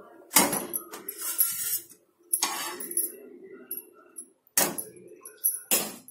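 Steel spatula scraping and clattering against a dosa pan and a steel plate as a cooked dosa is lifted off the pan: about five short metallic scrapes and clinks.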